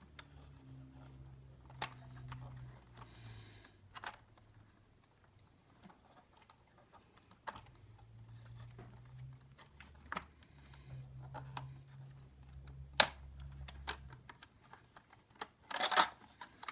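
Scattered light plastic clicks and taps from handling a Bruder toy backhoe loader as its cab door is taken off and refitted, the sharpest click about 13 seconds in and a short rustle near the end.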